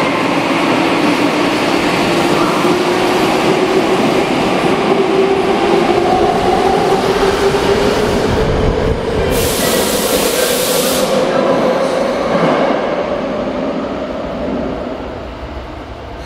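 Saitama Railway 2000 series subway train pulling out and accelerating past: the whine of its traction motors climbs steadily in pitch over the rumble of wheels on rail. A hiss lasts about two seconds near the middle, and near the end the sound fades as the train leaves.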